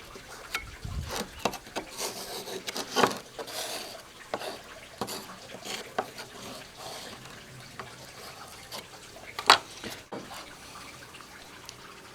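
Body filler being mixed by hand with its hardener: irregular wet scraping and sticky smearing, with small clicks and one sharp tap about nine and a half seconds in.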